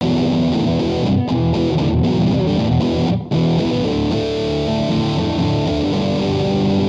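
Intro music led by guitar, with a brief drop-out about three seconds in.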